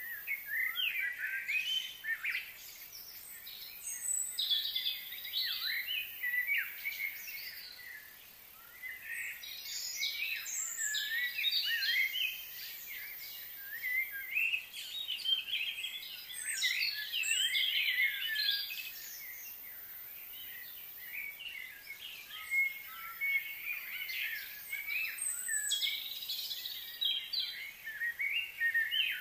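Small birds chirping and twittering: many short, quick, overlapping calls in spells that come and go, over a faint steady high hiss.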